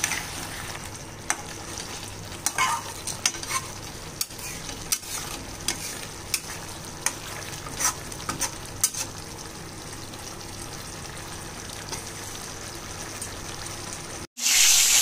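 A spatula stirring chilli chicken in thickened cornflour gravy in a pan, with irregular clicks and scrapes against the pan over a low, steady sizzle. Near the end the sound cuts out for a moment and a loud, steady frying hiss starts.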